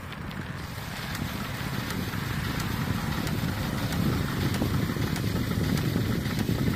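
Wind rumbling on the microphone during a bicycle ride, growing steadily louder, with faint ticks and rattles over it.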